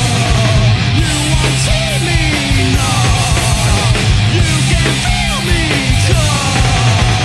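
A loud punk/heavy rock band playing: distorted electric guitar, bass and drums, with sliding, bending notes over a heavy low end.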